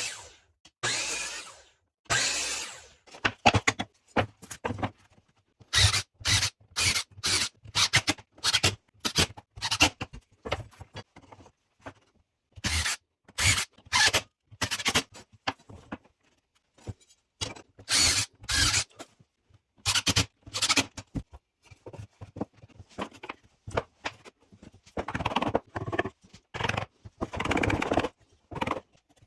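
Short scraping strokes of a hand tool working wood, dozens of them, each broken off sharply with brief silences between.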